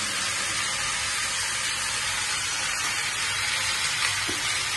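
Round potato slices frying in oil in a pan: a steady sizzle.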